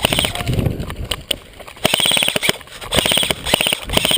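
Airsoft guns firing rapid bursts on full auto, about five short strings of fast clicks, each roughly half a second long.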